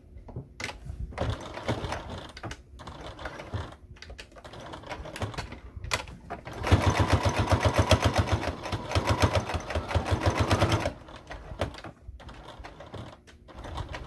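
Electric sewing machine stitching a seam through layered fabric, running in short starts and stops, then a steady fast run of rapid needle strokes for about four seconds in the middle, before slowing back to short bursts near the end.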